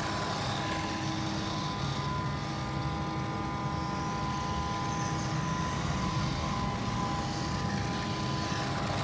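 Guokai 1:16 scale RC truck driving on concrete, its 390 brushed electric motor and gears whining steadily.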